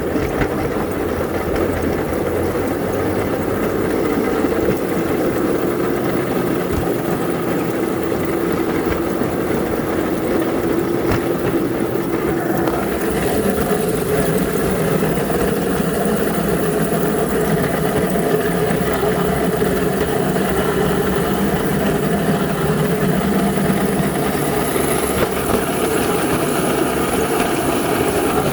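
Engine of a small rail vehicle running steadily, a constant mechanical hum with no pauses.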